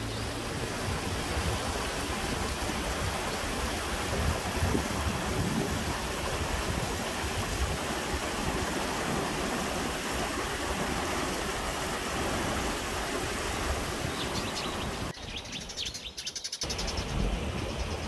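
Mountain stream running over rocks: a steady rush of water. A few bird chirps come in near the end, and the water sound drops away briefly about fifteen seconds in.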